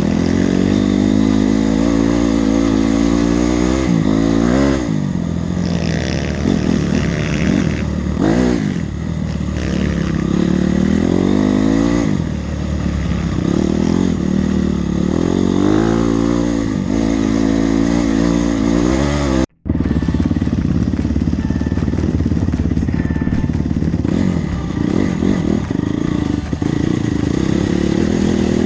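Honda CRF four-stroke single-cylinder trail bike engine running under load, revving up and easing off again and again as it is ridden over rough trail, with clatter and scraping from the bike. About two-thirds through, the sound cuts out for a split second and the engine picks up again.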